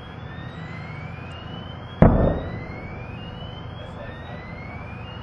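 A single explosion about two seconds in: munitions cooking off in a burning ammunition dump, with a short rumbling tail. Under it run a steady rumble and a whooping siren, its wail rising over and over.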